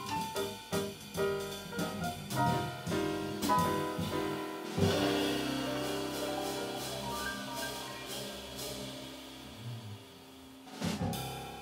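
Jazz piano trio of grand piano, fretless electric bass and drum kit playing the closing bars of a tune. Running phrases give way to a loud chord with cymbal about five seconds in that rings and slowly fades, then a last short hit near the end.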